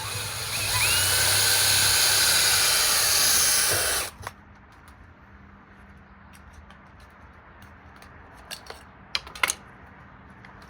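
Power drill boring small holes in cement board, running steadily for about three and a half seconds, then stopping abruptly. A few light clicks and knocks follow.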